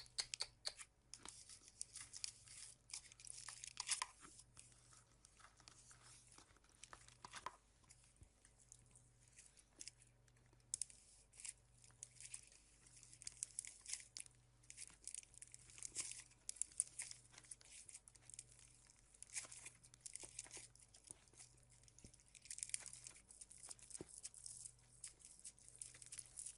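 Slime being squeezed and kneaded by hand, giving off many quick crackles and small pops in irregular clusters.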